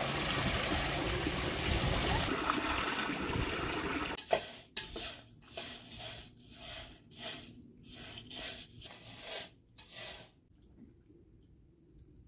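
Water pouring from a hose pipe and splashing into a pool for about four seconds, then a metal spoon scraping and stirring in a pan, about one stroke a second for some six seconds, then quiet.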